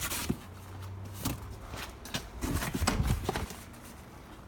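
Scattered light knocks, clicks and scuffs at uneven spacing, with a cluster about a second in and a busier run near the middle, over a faint low hum.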